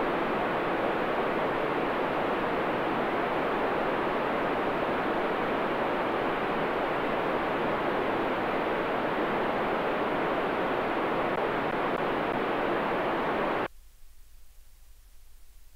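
Steady hiss of an FM radio receiver tuned to the ISS's 145.800 MHz downlink with no signal getting through. It cuts off suddenly about fourteen seconds in.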